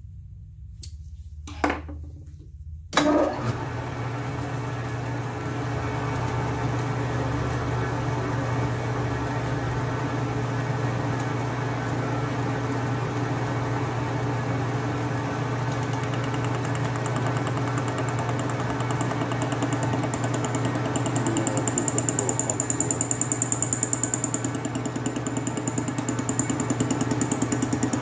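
Atlas metal lathe switched on after a couple of clicks, its motor and spindle drive starting about three seconds in and then running steadily with a low hum. From about 22 seconds in the running gets a little louder, with a faint high whine added.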